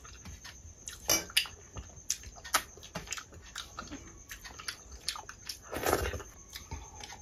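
Close-miked eating by hand: fingers scooping dal and rice across a steel plate, then wet lip smacks and chewing. Sharp wet smacks come about a second in and again near six seconds, as the handful goes into the mouth.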